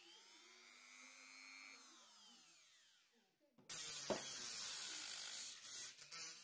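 Mini rotary tool fitted with a homemade cut-off disc, cut down from a stainless-steel cutting disc. It spins quietly with its pitch rising and then falling, and about two-thirds of the way in a much louder, hissing cutting noise with a high whine starts abruptly.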